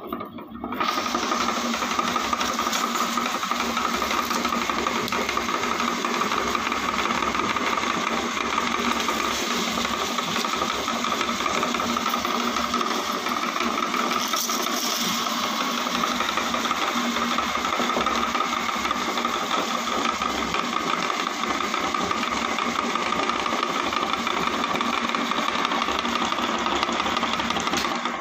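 Electric meat grinder's motor starts about a second in and runs steadily while grinding potato chips and small snacks fed into its hopper, with a brief rise in crunchy hiss midway as a handful of chips goes in.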